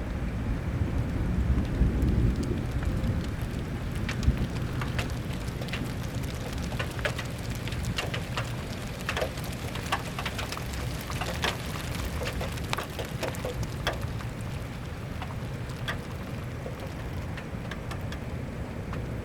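Rain at the start of a thunderstorm: large drops tapping sharply and irregularly on a nearby surface. A low rumble of thunder swells in the first few seconds and fades.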